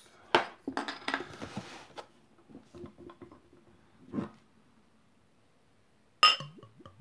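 Glass beer bottle handled after opening: a click and some rattling early, a knock about four seconds in, then near the end a sharp ringing clink of the bottle neck against a drinking glass as beer starts glugging into it.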